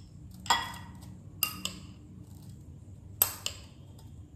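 A spoon clinking against a bowl while grated coconut is spooned out: five sharp, ringing clinks, the loudest about half a second in, then two quick pairs.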